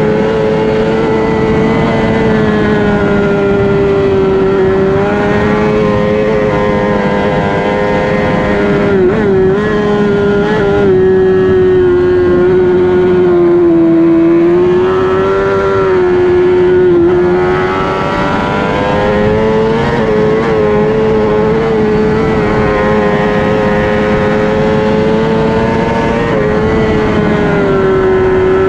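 1000cc Honda superbike's inline-four engine running hard at high revs under racing load, heard from an on-board camera. The pitch holds high and wavers, dipping and recovering a few times as the rider works the throttle and gears.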